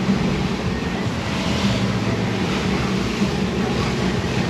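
Twin outboard motors running steadily at trolling speed, a low even hum, with water rushing along the hull and wind on the microphone.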